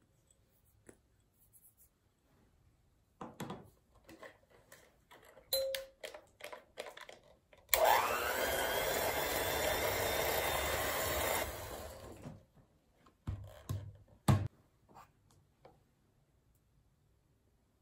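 Electric hand mixer switched on with its beaters in mascarpone and sugar in a glass bowl. It spins up with a rising whine, runs steadily for about four seconds, then winds down. Light clicks and knocks of handling come before it, and two sharper knocks after it.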